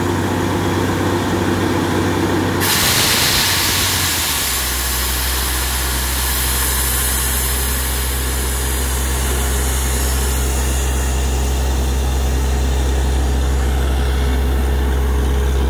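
Truck-mounted borewell drilling rig's engine running steadily while water and slurry are blown out of the bore. A loud rushing hiss cuts in suddenly about two and a half seconds in, and about two seconds later the engine note steps down lower and holds steady.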